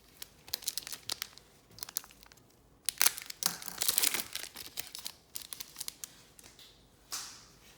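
Foil trading-card pack wrapper crinkling and tearing open, a run of sharp crackles with the loudest, densest burst about three to four seconds in and a short swish near the end.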